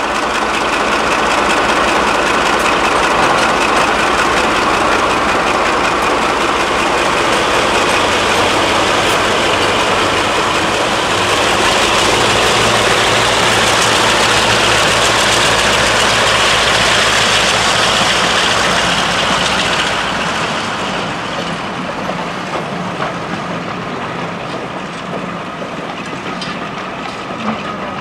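Heritage diesel locomotives running loud and steady as they haul a train past, loudest about halfway through as the engines go by. The sound then fades to quieter wheel-on-rail rumble as the coaches roll past, with one sharp click near the end.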